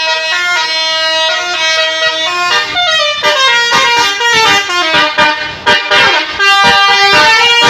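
A bus's basuri musical air horn playing a tune, its several tones stepping from note to note in a clarinet-like chord. Passing-vehicle noise breaks in under the tune through the middle.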